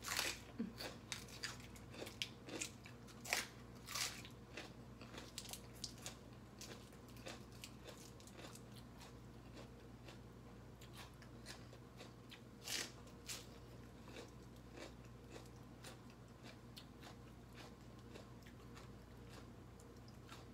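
Close-up crunching of a crisp lettuce leaf being bitten and chewed. The crunches come thick and fast in the first few seconds, then thin out to occasional crunches, with one louder crunch a little past halfway.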